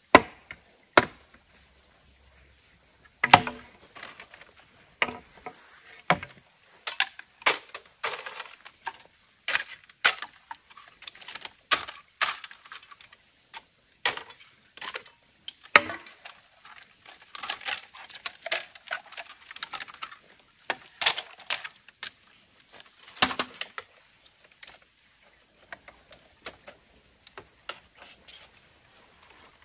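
A long run of irregular sharp knocks and taps, roughly one or two a second, with a few louder strokes among them.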